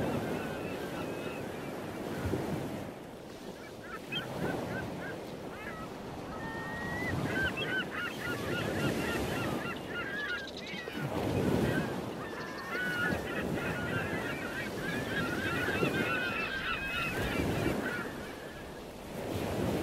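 Surf washing onto a beach, swelling every few seconds, with a flock of birds calling over it in many short, bent calls from a few seconds in until near the end.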